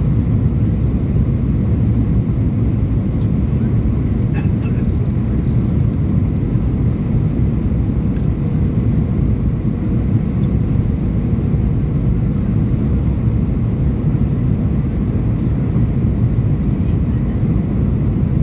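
Airbus A321 airliner cabin noise heard from a window seat: a steady mix of engine and airflow noise, mostly low in pitch, with a faint high steady tone over it and no change in level.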